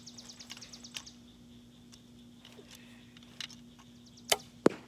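Compound bow shot near the end: a sharp snap at the release, then about a third of a second later a louder crack as the arrow strikes the target.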